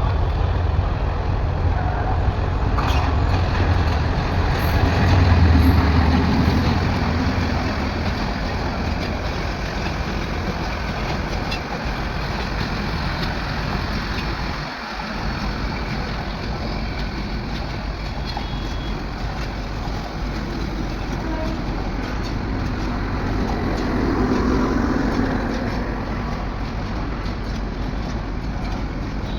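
A train running into a station: a steady rumble, loudest about five to six seconds in, then running on a little quieter.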